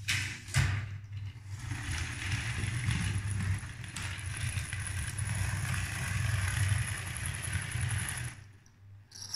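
Lego 12V electric train running along plastic track: a steady motor hum with a thin high whine over it and the rattle of the wheels, after a sharp knock just as it starts. It stops about eight seconds in, followed by a short click.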